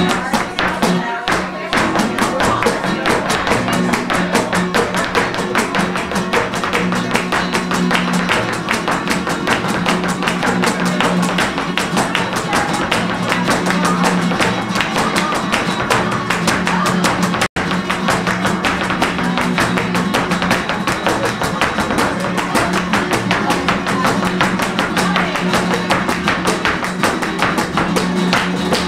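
Live flamenco music: guitar with a fast, dense run of percussive strikes. The sound cuts out for an instant a little past halfway.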